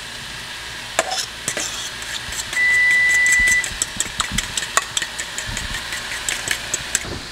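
Metal spoon stirring thick chili sauce in a stainless steel bowl, with many quick small clicks of the spoon against the steel, over a steady sizzle of frying. A steady high beep sounds for about a second.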